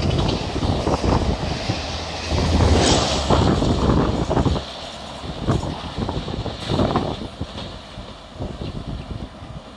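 Coaches of a speeding express train passing close by, wheels clattering rapidly over the rail joints. The noise drops off abruptly about four and a half seconds in as the last coach clears, and a few fainter clatters fade away as the train recedes.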